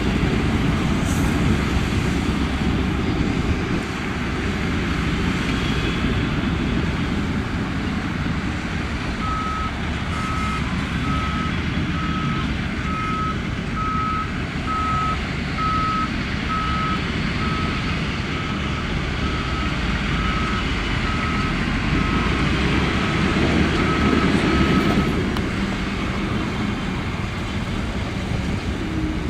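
Heavy diesel earthmoving machinery running steadily, with a reversing alarm beeping about once a second from about a third of the way in until near the end, as a machine backs up.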